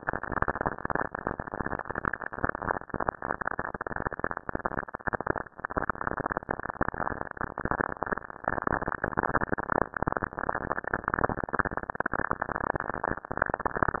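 Cassini spacecraft's recording of lightning in a giant Saturn storm, played back as sound: a dense, steady crackle of rapid pops and clicks, about a minute of signal sped up into seconds.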